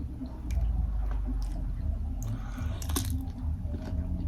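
Close-miked chewing and biting into a boiled shrimp, with wet crunchy clicks and a short burst of crackling about two to three seconds in, over a steady low hum.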